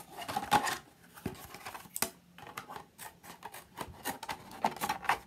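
Scissors cutting through a plastic HDPE milk jug to separate its top from its bottom: a run of irregular snips, with the stiff plastic crackling.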